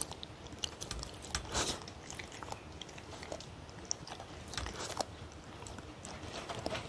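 A dog chewing and eating soft food from a stainless steel tray: faint, irregular small clicks and mouth sounds.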